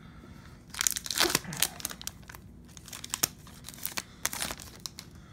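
Foil wrapper of a trading-card pack crinkling and tearing open, with a dense run of crackling about a second in, then scattered crinkles as it is handled.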